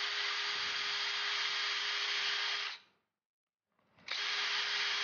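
Power drill spinning a countersink bit into holes in a thin aluminium strip, running at a steady speed. It stops for under a second, then runs again for another countersink.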